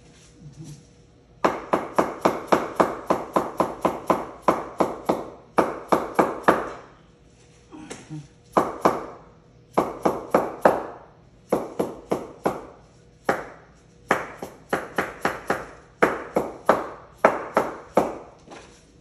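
Hammer blows struck in quick runs, about three to four a second, each with a short ringing decay, broken by brief pauses.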